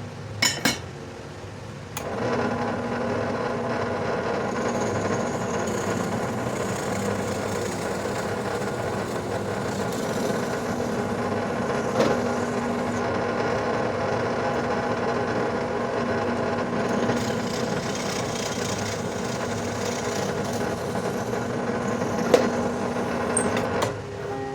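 Electric drill running steadily, boring the 1/4-inch pin holes through the knife's handle and tang. It starts about two seconds in, after a couple of short clicks, and stops just before the end.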